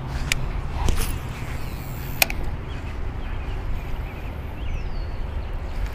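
A steady low rumble with faint bird chirps and a short falling whistle over it, broken by two sharp clicks, once just after the start and again about two seconds in.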